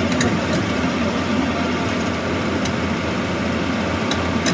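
Excavator engine running steadily, with a few faint clicks.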